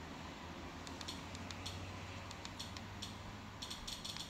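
A run of quick, light clicks, irregularly spaced, as a Fire TV menu is navigated with the remote. They begin about a second in and come faster near the end, over a faint low hum.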